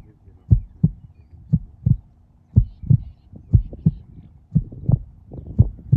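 Heartbeat sound effect: low double thumps, lub-dub, about once a second at a steady pace, building suspense before a rifle shot.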